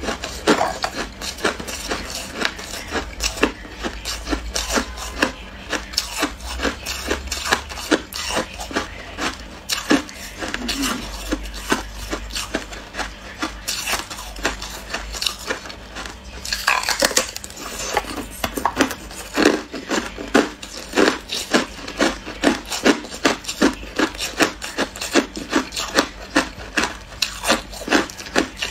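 Hard clear ice being bitten and chewed: a steady run of sharp crunches and crackles, about two strong crunches a second.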